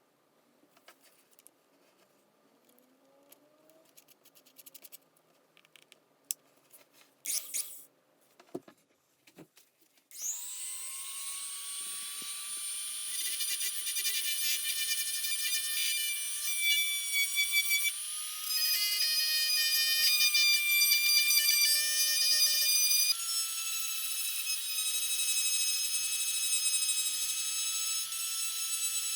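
Faint small clicks and handling noises, then a small power tool spinning up about ten seconds in with a quick rising whine. It keeps running at a steady high whine, its pitch shifting slightly a couple of times as it is worked.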